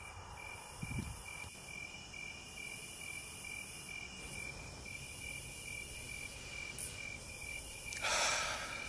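Crickets chirping in an evening insect chorus: an even, high pulsing chirp with a higher hissing trill above it that swells and fades every second or so. About eight seconds in, a brief rush of noise is louder than the insects.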